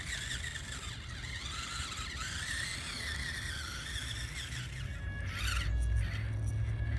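Tiny brushed motor and gears of a 1/25-scale micro RC rock crawler whining, the pitch wavering up and down with the throttle as it crawls. About five and a half seconds in there is a quick rising-and-falling rev.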